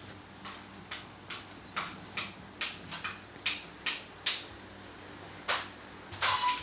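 A run of short, sharp taps, about two or three a second, with a louder double tap near the end.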